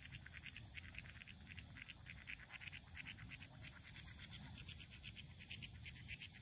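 Faint insect chorus: rapid, evenly spaced chirping from crickets or similar insects over a steady high hiss, with the chirping strongest in the first two seconds and again near the end. A low rumble runs underneath.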